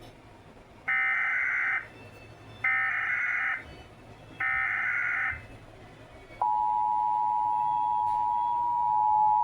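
Emergency Alert System tones from a mock EAS alert. First come three SAME digital header bursts, each a harsh warbling data noise about a second long with short gaps between them. About six and a half seconds in, the steady two-tone attention signal begins.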